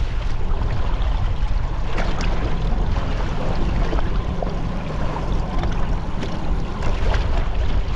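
Trolling boat under way on open water: a steady low rumble from the motor, with water splashing and slapping against the hull in short irregular bursts.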